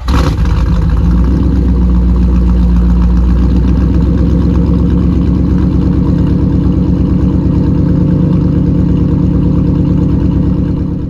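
Third-generation Pontiac Firebird's engine firing up on a cold start and running at a loud, steady idle.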